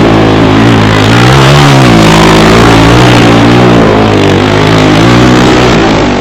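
ATV (quad) engine revving up and down repeatedly under throttle, loud and close, its pitch rising and falling every second or so.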